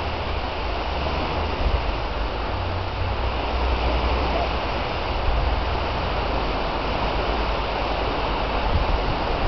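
Wind buffeting the microphone, a steady rumbling hiss, mixed with small waves washing onto the shore.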